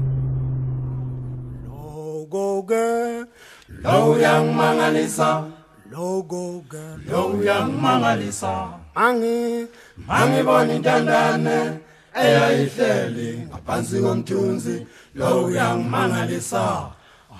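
Unaccompanied choir singing in harmony, in phrases that begin about two seconds in, after a held low note fades away.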